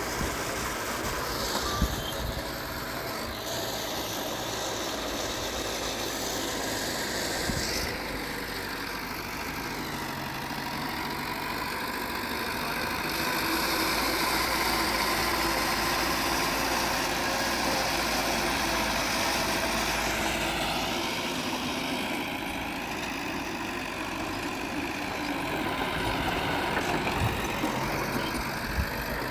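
Diesel engines of earthmoving machinery (bulldozer and dump trucks) running steadily. The engine sound swells a little through the middle, with a single knock about two seconds in.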